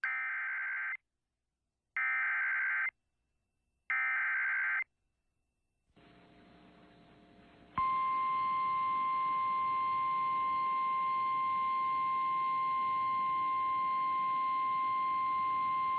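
Emergency Alert System activation over FM radio for a severe thunderstorm warning. Three one-second bursts of the SAME digital data header, a harsh warbling screech, come about a second apart with silence between them. After a moment of faint hiss, a single steady alert tone starts about eight seconds in.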